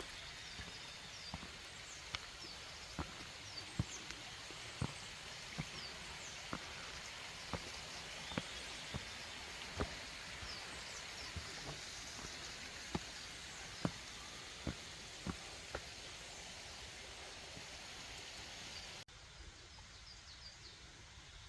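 Mountain stream flowing steadily, with small birds chirping and sharp irregular ticks about once a second. Near the end the sound drops suddenly to a quieter, similar stream sound.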